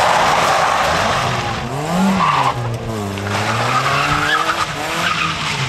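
Toyota Corolla E10 driven hard through a coned course, with a loud rush of tyre noise as it passes close at the start. The engine's revs rise and fall about two seconds in, then hold while the tyres squeal and skid through the turn.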